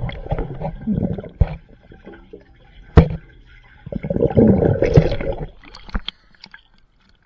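Swimming-pool water sloshing and gurgling around the camera's microphone, with a sharp knock about three seconds in and a louder burst of splashing a second later.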